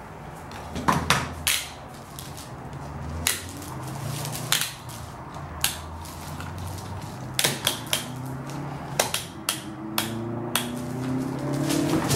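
Scattered sharp clicks and knocks, about a dozen, from plywood being handled and orange one-handed bar clamps being set on its edge. A low hum runs underneath.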